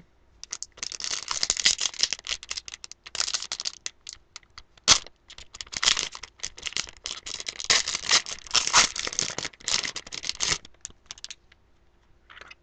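Crinkling and rustling of trading-card packaging (foil wrapper and plastic sleeves) being handled, in uneven spells, with a sharp click about five seconds in.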